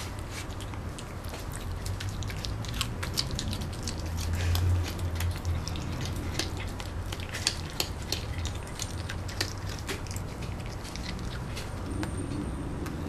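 Sphynx cat chewing meat: irregular wet clicks and smacks of its mouth. A steady low hum runs underneath.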